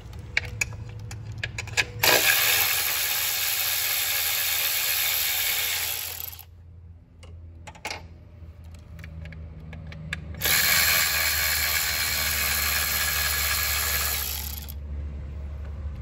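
Milwaukee cordless electric ratchet, with an extension and socket, spinning out the 8 mm coil-pack bolts. It runs twice for about four seconds each time, starting about two seconds in and again about ten seconds in, with a few scattered clicks before the first run.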